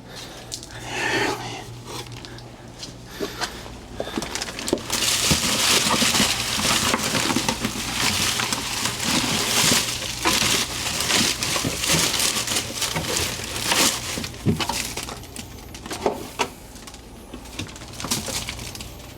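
Dry garden debris crunching and crackling as it is crushed by hand into a compost container. The dense crackle starts about five seconds in and runs for about ten seconds, with scattered clicks and rustles around it.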